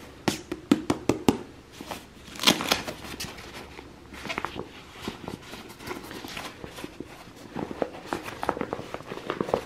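A fabric camera pouch being handled, unfolded and opened by hand: rustling and crinkling of the cloth with scattered small clicks and taps, and a short louder rustle about two and a half seconds in.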